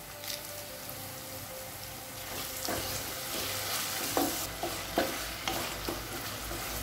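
Chopped onions and tomatoes sizzling in hot oil in a pan. From about two seconds in, a spatula stirs and scrapes through them, with a knock against the pan roughly every second.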